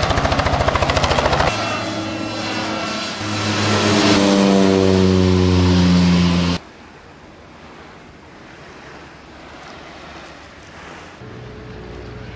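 Low-flying aircraft: a fast pulsing engine and rotor chop for the first second and a half, then a propeller plane's engine passing overhead, its note falling in pitch as it goes by, cut off abruptly about six and a half seconds in. A much fainter, even noise follows, with a low steady engine hum coming in near the end.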